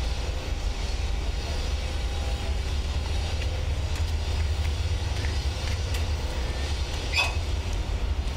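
Steady low rumble of road traffic, with one brief sharp sound about seven seconds in.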